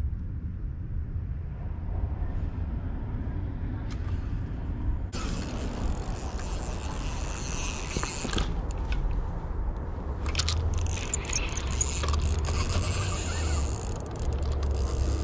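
Spinning reel clicking and ratcheting while a hooked carp is played on the rod, over a low rumble of wind on the microphone. The clicking sets in about five seconds in and grows busier in the second half.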